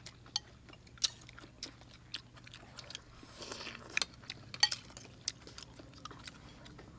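Eating at a table: spoons and forks clicking against bowls and plates in scattered sharp ticks, with soft chewing between them.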